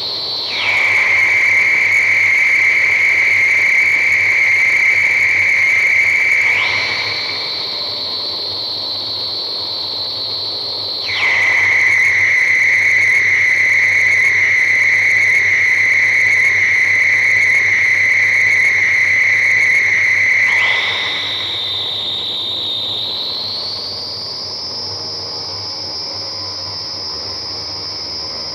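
Harsh noise: a piercing, steady electronic tone over a hiss. It drops almost at once from a high whine to a lower, louder tone, jumps back up after about six seconds, drops again a few seconds later, then climbs back up in two steps over the last several seconds.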